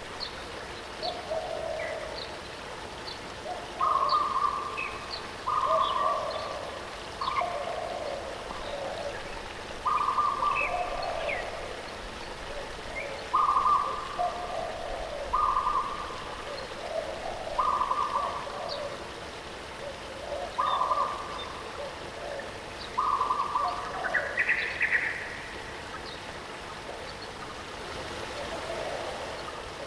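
Birds singing over the steady rush of a waterfall. One bird repeats a call about every two to three seconds, a clear steady note followed by a lower warbling phrase, while other birds add short high chirps.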